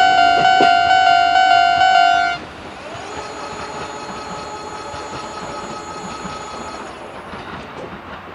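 A Japanese level crossing's old-type electronic warning bell dinging in a steady rhythm, then cutting off about two seconds in as the crossing clears; a train then runs on along the track, its wheels clattering on the rails and slowly fading.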